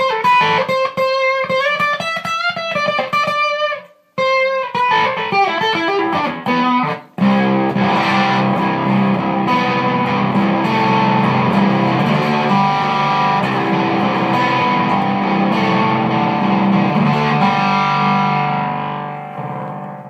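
Electric guitar on its bridge pickup played through a Mark 1 Tone Bender-style fuzz pedal into a Hiwatt amp. A single-note riff runs for about seven seconds, then fuzzy sustained chords ring out and fade near the end.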